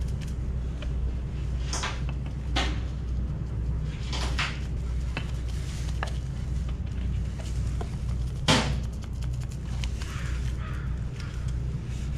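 A few scattered knocks and taps from brush and tool handling while resin is brushed into fiberglass chopped strand mat, the loudest a sharp knock about two thirds of the way through. A steady low hum runs underneath.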